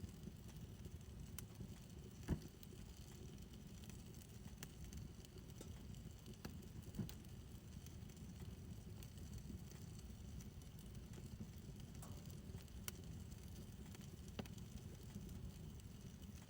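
Fire in a fire pit burning quietly: a steady low rumble of flame with scattered sharp crackles and pops, a few seconds apart.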